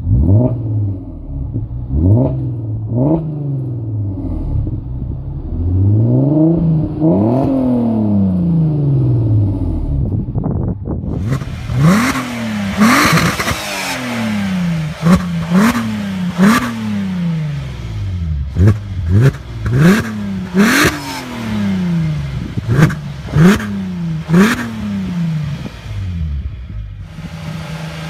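Audi A3 3.2 V6 engine revved repeatedly through its exhaust while standing: a series of rev blips, each rising sharply and falling back, some held longer. About ten seconds in it changes to a second A3 3.2 V6 with a brighter note and quicker blips in close succession.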